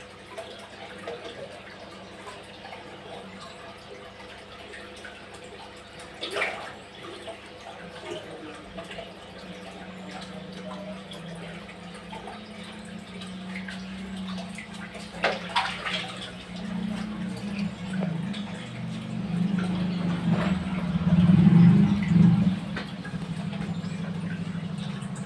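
Water sloshing and dripping in a large aquarium holding Oscar fish, with a steady low hum underneath. There are a few sharper splashes, about six seconds in and twice around fifteen seconds in, and a louder low rumble builds in the last third.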